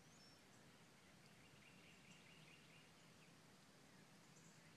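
Near silence: faint outdoor ambience with distant birds singing, including a thin high trill held for about two seconds starting about a second in.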